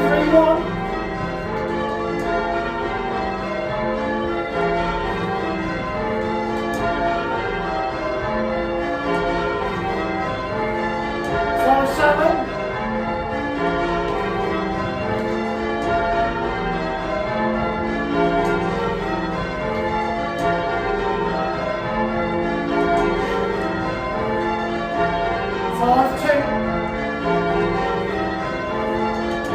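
Ring of eight church bells rung full circle in change ringing, the bells striking one after another in an unbroken, even sequence. The bells are a 1937 Gillett & Johnston octave with two 1750 Thomas Wroth bells, and the tenor is in F. A brief louder sound rises over the ringing three times: right at the start, about twelve seconds in, and near the end.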